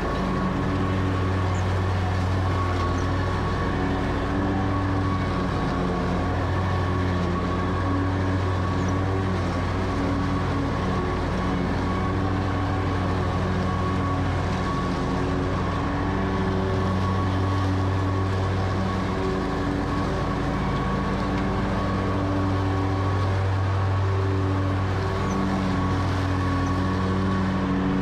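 Ferris mower's engine running steadily under load as the deck cuts through tall, dense grass and weeds, its hum wavering slightly now and then.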